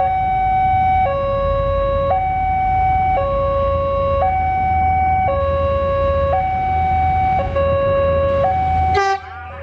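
Railway level-crossing alarm sounding its two-tone warning, a higher and a lower tone alternating about once a second, over a steady low rumble. It signals that a train is approaching and the crossing is closed. The sound cuts off abruptly near the end.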